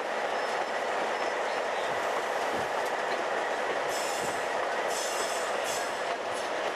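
Freight train under way, heard from an EMD MP15DC diesel switcher locomotive: a steady noise of engine and rolling wheels on the rails. Three short, high squeals from the wheels come between about four and six seconds in.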